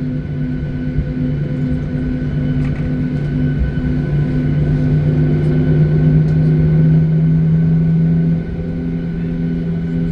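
Jet airliner engines droning, heard from inside the passenger cabin: a steady low hum with a second tone that beats about twice a second over a rumble. The level builds slowly and dips briefly near the end.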